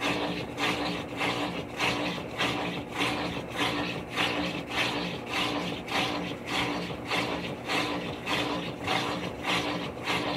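Maytag Centennial top-load washing machine running its delicate cycle: a steady motor hum under a rhythmic swishing, scraping pulse that repeats about one and a half times a second.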